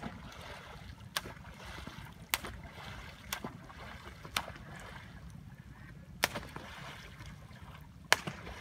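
Sharp slaps of a pole striking the water surface, about seven in all, roughly a second apart with a longer gap near the middle, over a steady low rumble of wind on the microphone.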